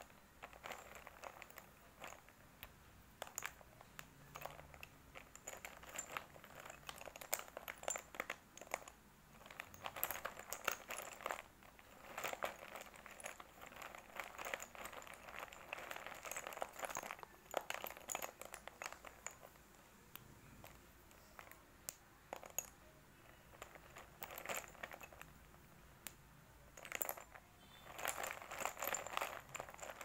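Sticks of white chalk clicking and clattering against one another as a hand stirs and rummages through a bowlful of them. The sound comes in spells of dense clicks a second or few long, with short pauses between.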